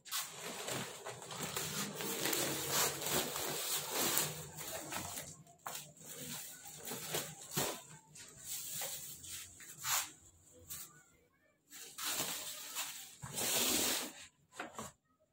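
A large plastic sack rustling and crinkling in irregular bursts as it is handled, with a few light knocks; the loudest rustle comes about two seconds before the end.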